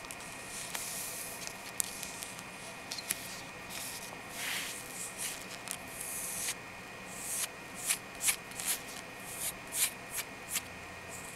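Long natural fingernails scratching across bare skin: short, dry scratching strokes that come quicker and louder in the second half.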